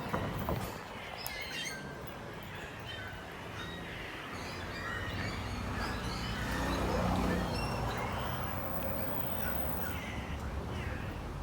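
Several birds chirping and calling in short scattered notes over a steady low rumble, which swells briefly around the middle.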